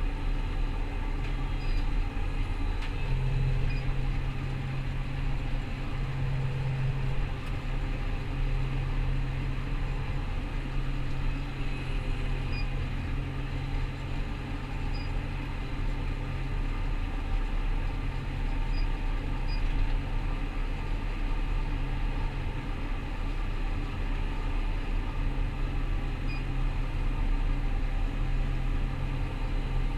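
Rostselmash Vector 425 combine harvester running at steady working speed: a continuous deep diesel drone that holds an even level throughout.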